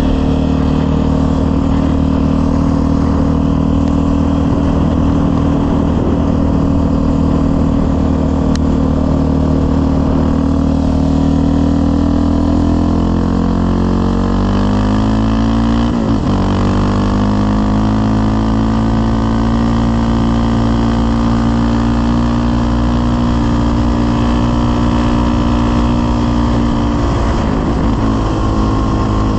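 Yamaha Raptor 700R's single-cylinder four-stroke engine running through a full aftermarket CT Racing exhaust while the quad is ridden on the road. It holds a steady pace, drops in pitch a little before halfway, then pulls back up and settles. There is a brief break in the pitch near the end.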